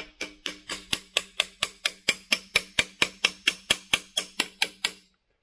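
A hammer tapping steadily and quickly, about four to five blows a second, on a wrench-and-socket driver to press an oil pickup tube into a cast iron oil pump. Each blow gives a short metallic ring. The tapping stops shortly before the end.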